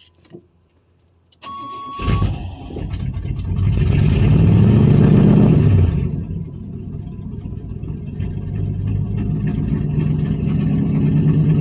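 The 1985 Chevy Suburban's Quadrajet-carbureted engine cranks briefly and catches about two seconds in after hard starting, revs up, drops back about six seconds in, then runs at a fast idle that slowly rises.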